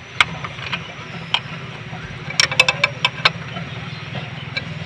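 Ford Ranger's engine giving a steady low drone, with scattered sharp metallic clicks and a quick cluster of clicks about two and a half seconds in.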